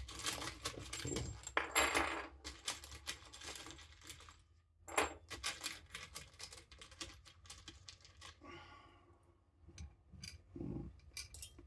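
Small metal screws and washers clinking and rattling as a hand rummages through a pot of screws, busiest in the first few seconds, then scattered clicks with a short pause near the end.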